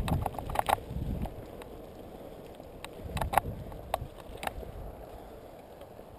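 Mountain bike rolling over a dirt singletrack: low tyre rumble and wind on the microphone, with sharp rattles and clacks from the bike over bumps, several in the first second and a few more around three to four and a half seconds in.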